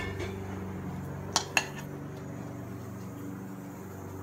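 Two quick clinks of a kitchen utensil against cookware, about a second and a half in, over a steady low hum.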